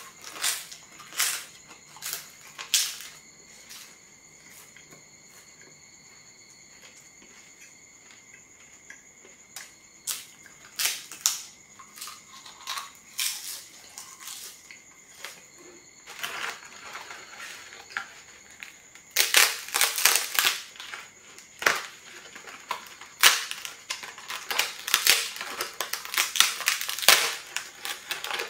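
Crunching of thin, crisp flatbreads: a few sharp crunches as pieces are bitten off in the first seconds, more after about ten seconds, then a dense run of crackling and snapping in the second half as the brittle breads in the stack are handled and broken.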